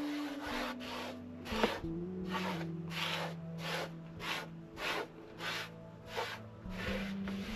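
Hand scrubbing a hard plastic tray with a small pad, in rhythmic rasping back-and-forth strokes about one and a half a second, over faint steady background music.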